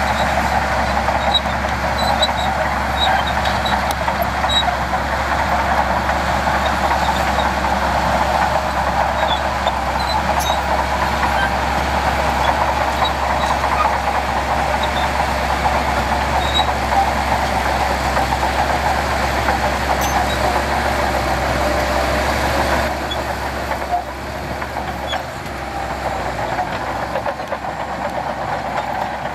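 Heavy diesel earthmoving machinery running steadily, the engine noise of a bulldozer, wheel loader or dump truck working sand, easing slightly about three quarters of the way through.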